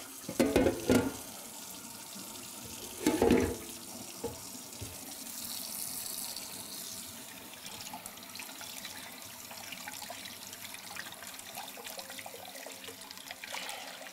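Kitchen faucet running into a sink and into a crock pot insert as rinse water is drained and refilled, a steady hiss of pouring water. About half a second in, and again about three seconds in, come loud splashes and knocks as the pot is tipped and handled.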